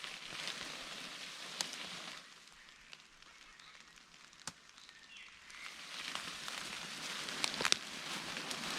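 Rustling of leaves and undergrowth as someone moves through it, in two spells, with a few sharp snaps like twigs breaking.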